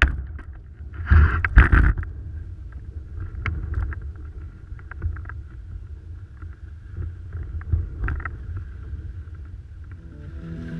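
Windsurf board (JP FSW 102) moving over choppy water, heard from a camera fixed to the board: a steady low rumble of the hull on the water and wind on the microphone, with louder splashes of spray between about one and two seconds in. Music comes in near the end.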